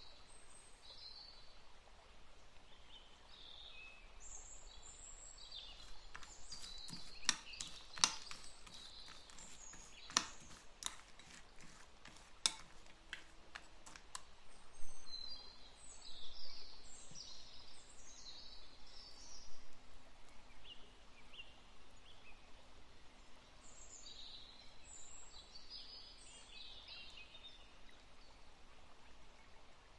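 Metal spoon stirring chopped dark chocolate into cream in a ceramic bowl, with scraping and a run of sharp clinks against the bowl in the middle as the mix melts into ganache.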